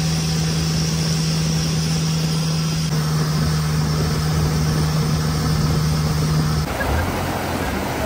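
A passenger boat's engine running at a steady pitch, with water rushing along the hull. Near the end the hum stops and gives way to a shallow stream rushing over rocks.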